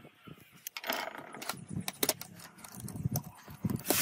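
Metal tools being handled on a clutch assembly: a steel socket and wrench clinking and knocking as they are set in place, with a string of sharp irregular clicks and a brief scrape starting about a second in.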